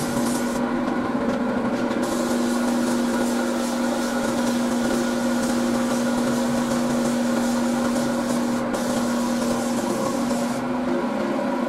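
A gravity-feed paint spray gun hissing as it sprays paint onto a car bumper, over the steady hum of an air compressor. The hiss drops away about a second in and again near the end, as the trigger is let off.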